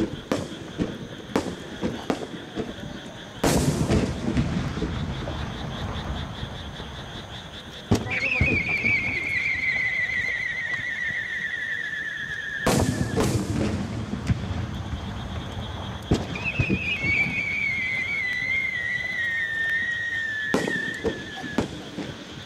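Aerial firework shells bursting with sharp bangs that trail into a low rumble, four big ones among many smaller pops and crackles. Twice a long wavering whistle slowly falls in pitch over several seconds.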